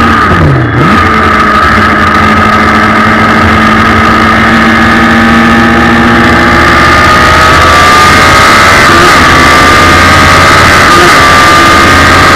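Suzuki Hayabusa 1300 motorcycle engine in a race car running loud on track, its note drifting slowly up and down. Under a second in, the engine note dips briefly and swoops down and back up.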